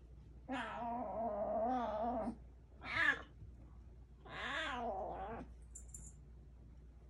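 F1 Bengal kitten meowing three times: a long call with a wavering pitch, a short one, then another drawn-out one.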